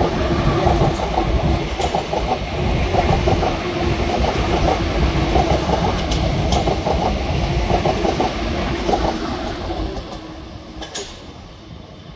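Southeastern Class 465 Networker electric multiple unit passing close by, its wheels clattering over the track under a steady hum. It fades away over the last couple of seconds as the train clears.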